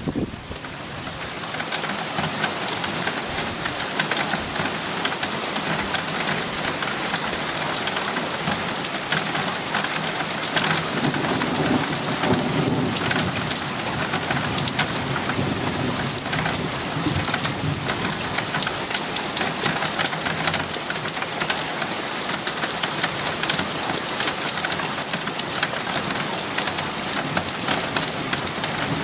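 Steady heavy rain falling during a thunderstorm, with a low rumble of thunder swelling around the middle.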